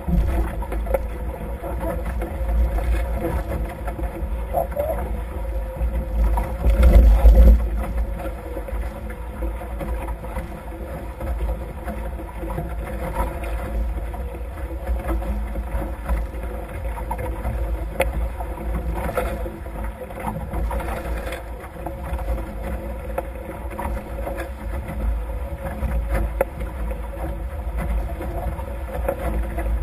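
Wind buffeting the microphone and water rushing along the hulls of a Nacra F18 racing catamaran sailing fast under gennaker, with a faint steady hum underneath. A stronger gust swells the noise about seven seconds in.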